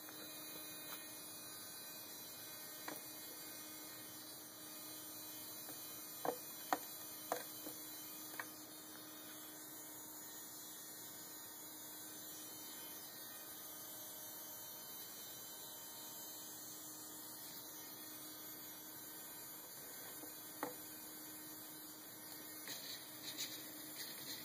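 A steady, faint electrical hum, broken by a handful of short sharp clicks, most of them clustered around a third of the way in and one more later. Faint light ticks come near the end.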